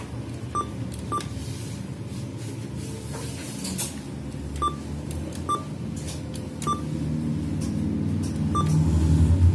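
ATM keypad beeping as digits of a phone number are keyed in: about six short single-pitch beeps at uneven intervals, one per key press. A low rumble runs underneath and grows louder near the end.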